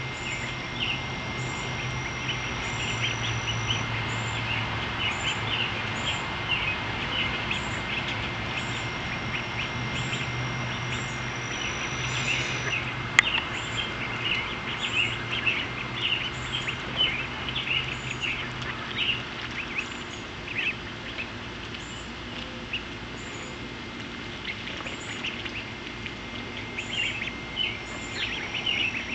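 A flock of young ducklings peeping, many short high calls overlapping, with a lull about two-thirds through. A single sharp click about thirteen seconds in.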